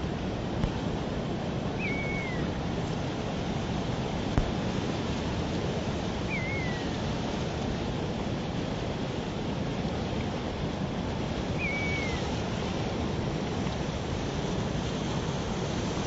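Mountain river flowing with a steady rush. A bird calls three times over it, each a short chirp that slides down in pitch, about five seconds apart, and there is one brief knock a few seconds in.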